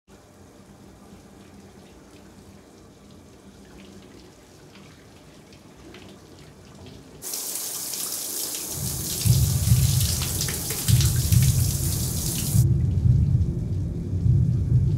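Shower head spraying water, a loud even hiss that starts suddenly about seven seconds in and cuts off about five seconds later. Under it, from about nine seconds in, a low pulsing rumble.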